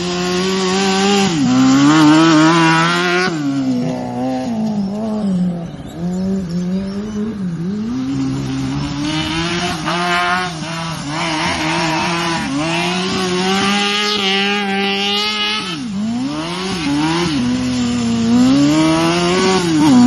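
Ride-on lawn mower engine running hard, its pitch repeatedly sagging and picking back up, with a sharp dip about sixteen seconds in.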